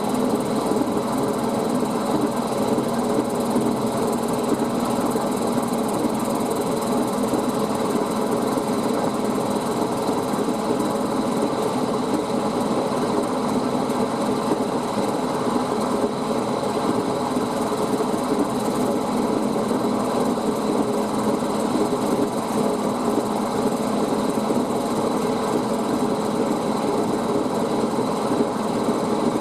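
Milling machine running steadily while machining a brass bracket.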